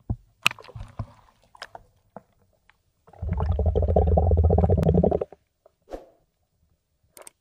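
Underwater recording: scattered clicks and knocks for the first couple of seconds, then a loud rumbling gurgle of bubbles lasting about two seconds in the middle, with a shorter faint one a little later.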